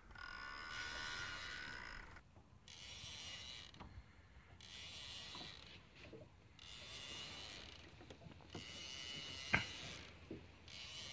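Fishing reel winding in about six spurts of a little over a second each, with short pauses between, as a hooked fish is reeled in on a bent rod. A single sharp click near the end.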